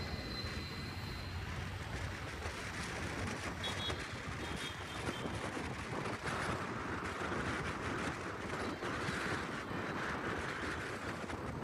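Steady road traffic noise with wind buffeting the microphone, as heard from a moving vehicle.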